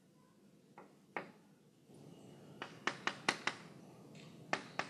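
Chalk writing on a chalkboard: a quick run of sharp taps and light scratches, several a second, from about halfway through. Two single knocks come about a second in.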